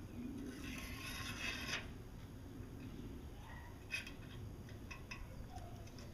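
Eel skin being worked back by hand with paper towels: a short scraping rustle about a second in, then a few light clicks.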